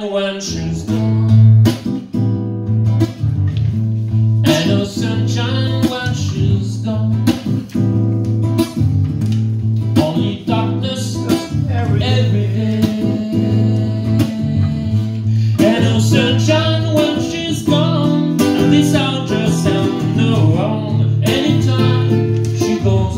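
Nylon-string classical guitar played as accompaniment to a man singing a song.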